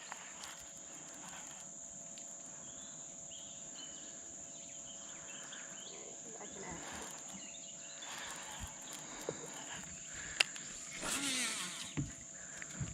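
Insects buzzing outdoors in one steady high-pitched drone, with a brief louder rustle about eleven seconds in.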